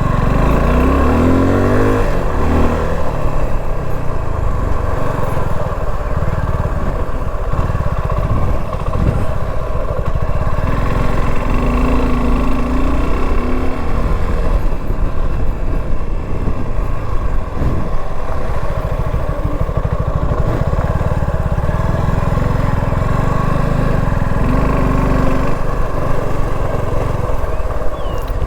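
Motorcycle engine running under load while riding off-road, revving up and down in the first few seconds and then running on steadily.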